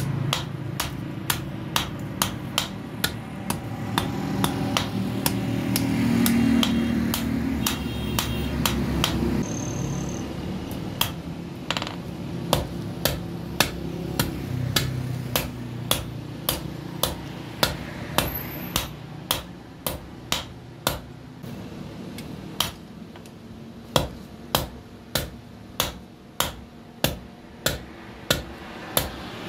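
Blacksmith's hand hammer striking red-hot steel on a steel anvil block while forging a sickle, in steady sharp blows about two a second. A low engine-like rumble runs under the blows for roughly the first ten seconds, then fades.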